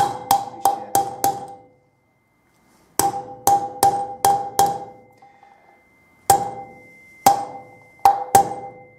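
Hammer striking a metal drift to drive a new wheel bearing down into a motorcycle wheel hub, until the bearing meets the inner spacer tube. There are three runs of sharp ringing metal taps, each about three to the second, with short pauses between them.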